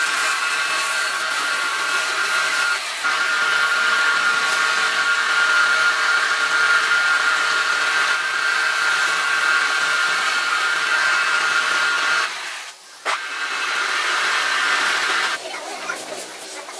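Wood lathe running steadily with a motor whine, while sandpaper and then a cloth are held against the spinning wooden workpiece. The sound cuts out briefly about three-quarters of the way through and is quieter near the end.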